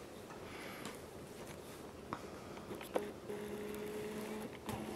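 Quiet room tone with a few faint clicks, and a faint steady hum that comes in about three seconds in.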